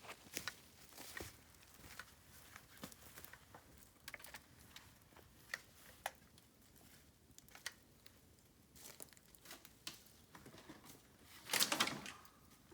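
Faint, scattered crackles and clicks of dry bamboo, with a louder rustling burst near the end.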